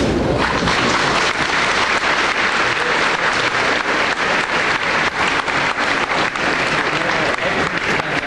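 Large crowd applauding, a dense, steady mass of clapping.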